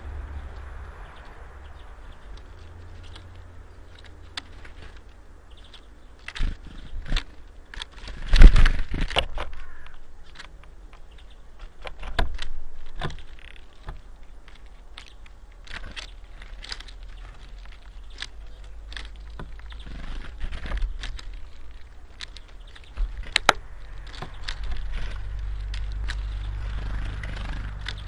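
Middle spotted woodpecker feeding at a wooden seed tray: irregular sharp taps and clicks as it picks through the seeds and knocks against the feeder, with the loudest cluster about eight seconds in. A low rumble sits underneath, stronger near the end.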